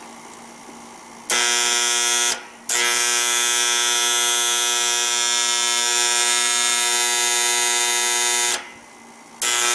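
An HVAC contactor's coil, powered from a 120-volt control transformer, pulls in and buzzes loudly and steadily. It drops out briefly a little after two seconds in, is energised again until near the end, and switches on once more just before the end. The 240-volt side is dead, so this is the contactor alone, not the compressor.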